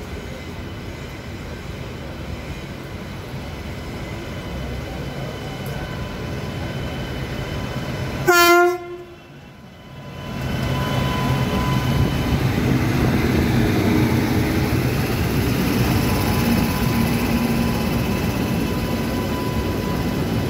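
Rumble and wheel noise of a moving train heard from its open doorway as an oncoming WAP-7 electric locomotive and its train draw near on the next track. About eight seconds in, a short loud horn blast sounds; from about ten seconds on comes the louder rush of the passing coaches.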